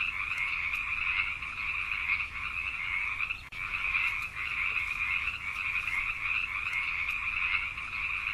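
Gray tree frogs calling: continuous trilling, pitched high with a lower second band, with a brief break about three and a half seconds in.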